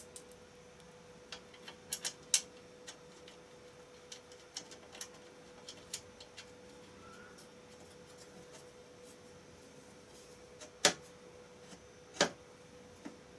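Scattered clicks and knocks of small parts being handled and fitted onto a Ryobi 9-inch benchtop band saw, the sharpest about two seconds in and twice near the end, over a faint steady hum.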